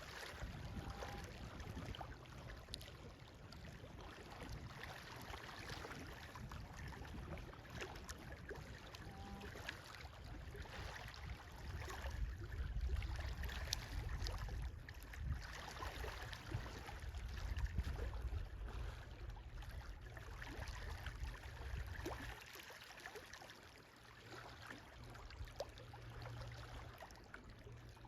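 Wind buffeting the microphone: an uneven low rumble with a fainter hiss above it, easing off about twenty-two seconds in.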